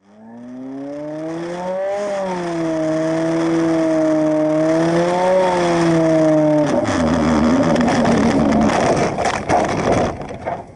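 Light aircraft engine and propeller running, rising in pitch over the first two seconds and then wavering up and down. About seven seconds in the steady tone gives way to a rougher, noisier rumble with knocks, which stops near the end.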